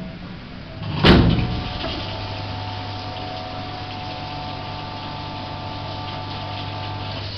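The stainless-steel hood of a Hobart Ecomax CHH 50 hood-type dishwasher shuts with a sharp bang about a second in. The machine then runs with a steady hum and a higher whine as its wash cycle starts.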